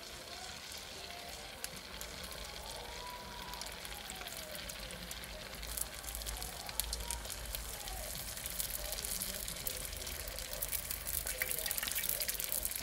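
Egg rolls deep-frying in a pot of hot oil: a steady sizzling hiss with crackling pops, growing louder and busier about halfway through.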